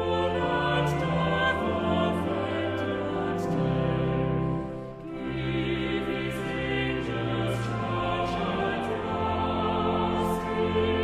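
A congregation singing a hymn with sustained instrumental accompaniment, with a brief dip about five seconds in, between lines.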